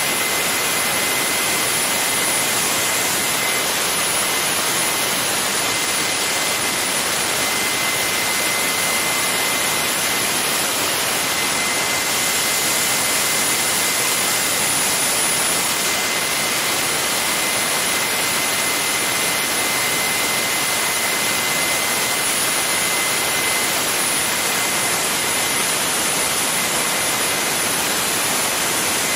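Garrett GTCP85 aircraft auxiliary power unit, a small gas turbine, running at constant speed: an even roar with two high whining tones held through it. It is driving its alternator with a bank of light bulbs on as the load.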